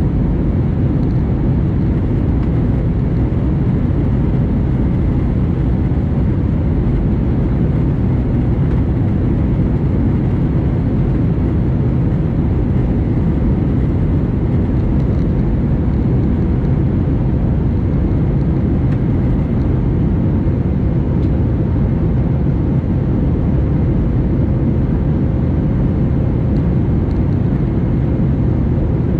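Jet airliner in flight heard from inside the cabin: a steady, even low rumble of engines and rushing airflow, with a faint steady hum above it.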